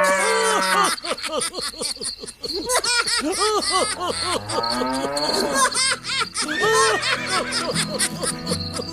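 Background music mixed with laughter, a busy string of short rising-and-falling pitched sounds.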